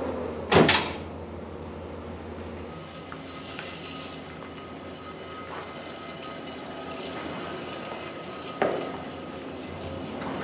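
Two sharp metallic clanks from a gooseneck trailer hitch in a pickup bed, a loud one about half a second in and a smaller one near the end, over a low engine hum that drops away a few seconds in.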